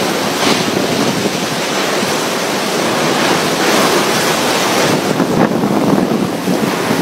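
Tropical storm winds blowing: a loud, steady rushing noise that swells now and then in gusts, with wind buffeting the microphone.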